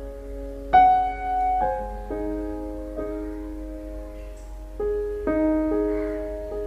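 Slow, soft piano music: sustained notes and chords struck a few at a time, with new notes starting every second or so.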